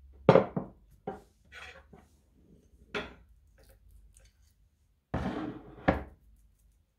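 Kitchen handling sounds: a glass bowl of curd cheese set on the board and a metal spoon scooping from it, a few separate knocks and clinks, the loudest just after the start, with a longer scrape and a sharp clink near the end.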